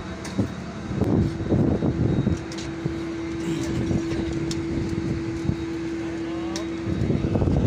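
Apron noise beside a parked airliner: a steady whine over dense rumbling machine noise, the whine stopping about seven seconds in, with a few faint clicks.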